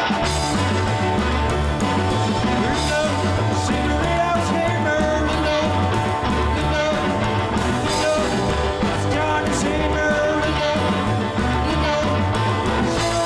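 Rock and roll song with singing and a steady bass beat.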